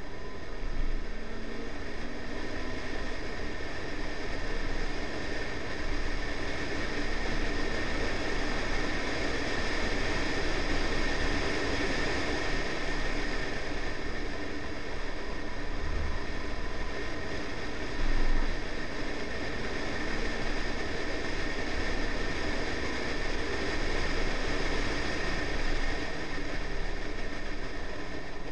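Steady wind rush and tyre roar of a Honda Civic at track speed, heard through a camera mounted on the outside of the car's flank, with one sharp thump about two-thirds of the way through.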